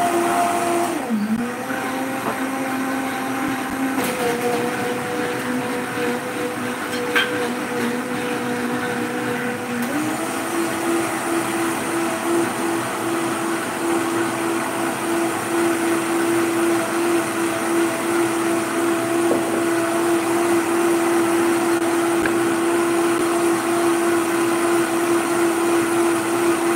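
Vitamix blender motor running steadily, blending rice, dates and walnuts with water. Its pitch drops about a second in and climbs back up about ten seconds in, then holds steady.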